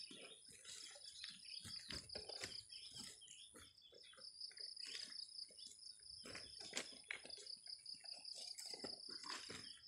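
Insects chirping steadily in a fast pulsing trill, with a thin steady high whine above it. Under it come irregular knocks and rustles as cut sugarcane pieces are picked up, knocked together and packed into sacks.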